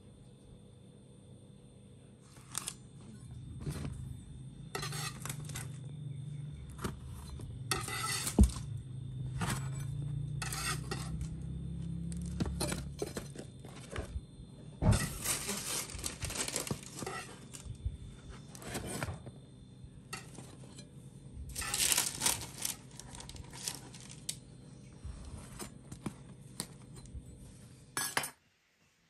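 Kitchen handling sounds: a metal baking tray and utensils clinking and knocking, with several scraping stretches of about a second each as a knife saws through the crusty buns. A low hum runs under the first half.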